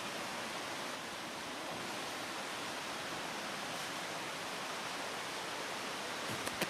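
Steady, even rushing noise with a brief click near the end.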